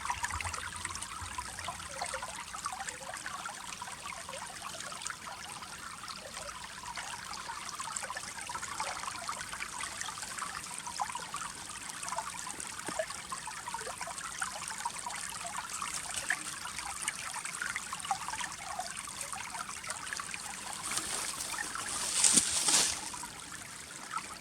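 Shallow river water trickling and gurgling among ice, with many small bubbling crackles. A brief louder rush a little before the end.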